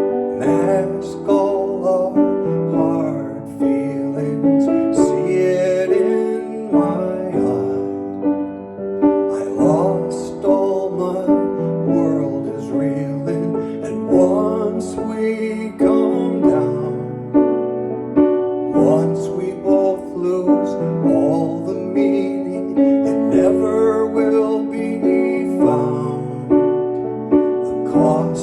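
Piano playing a slow instrumental passage of sustained chords and melody.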